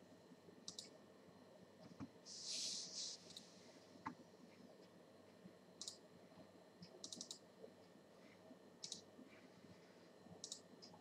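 Faint computer mouse clicks, some single and some in quick clusters, every second or two. A brief soft rushing noise about two seconds in is the loudest sound.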